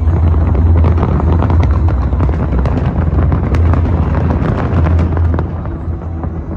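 Dense fireworks barrage: many shells bursting at once, rapid overlapping bangs and pops over a steady low rumble, easing slightly near the end.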